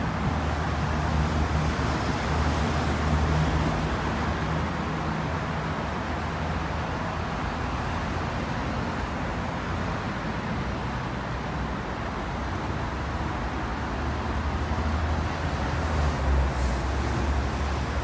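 City road traffic: a steady rush of passing cars with a low engine hum that swells in the first few seconds and again near the end.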